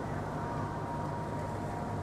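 Steady running noise of a moving vehicle heard from inside, a low rumble with a faint steady whine above it.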